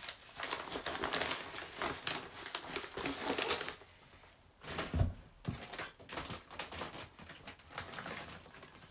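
Items being handled and rummaged in a box: rapid rustling and clicking, a short lull, then one dull thump about five seconds in, followed by scattered light knocks.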